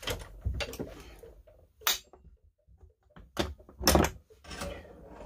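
Hand tools knocked and set down on a workbench: a handful of short, sharp knocks and clunks, the loudest about four seconds in.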